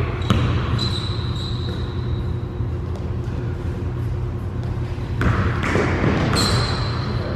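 Basketball dribbling on a hardwood gym floor, with sneakers squeaking briefly about a second in and again near the end as a player drives to the basket. A steady low hum runs underneath.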